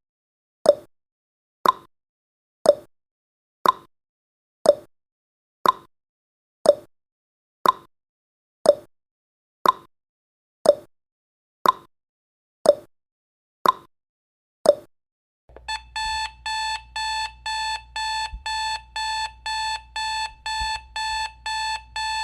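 Countdown timer sound effect: a sharp tick once a second for about fifteen seconds. When the timer reaches zero, a high electronic alarm beep starts repeating rapidly, about two and a half beeps a second.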